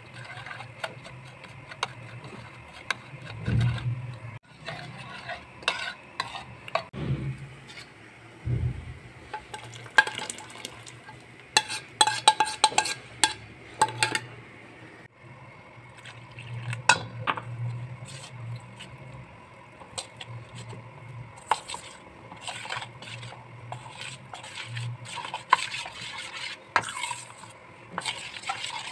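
A metal spoon stirring and clinking against bowls while liquid ingredients are mixed, with many short irregular clinks over a low hum.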